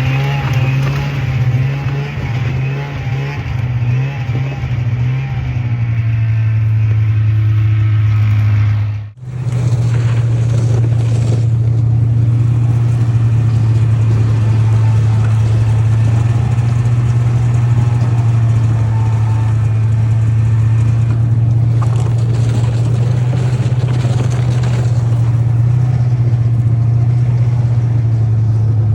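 A motor vehicle's engine running at a steady speed while driving, a loud constant low hum. It breaks off for a moment about a third of the way through, then continues much the same.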